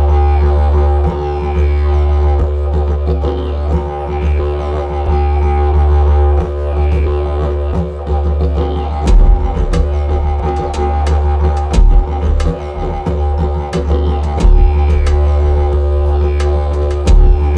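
Background music: a deep, steady drone with sustained tones above it and sharp percussive hits every second or so.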